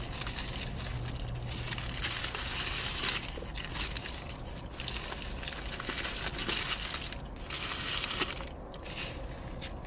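Close-up chewing of a mouthful of double bacon cheeseburger, in uneven crunchy patches, with some paper wrapper crinkling.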